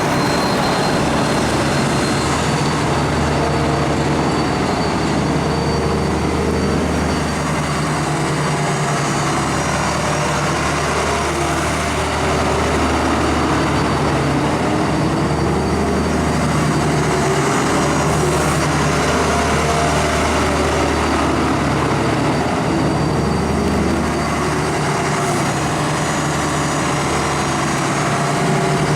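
Doosan DX140WV wheeled excavator's diesel engine running steadily, with small rises and falls in pitch in places.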